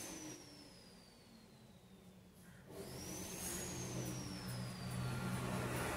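Faint high electronic whine from the Samsung LED TV's circuitry as it is switched by remote: about three seconds in the tone jumps up, then slides slowly down in pitch. A low steady hum comes in at the same moment.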